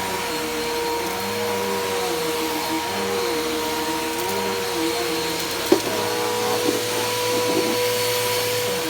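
Bissell PowerForce Helix Turbo upright vacuum running with a steady motor whine, under a lower hum that rises and falls in a regular wave. About two-thirds of the way through there is one sharp knock, followed by a couple of fainter ones.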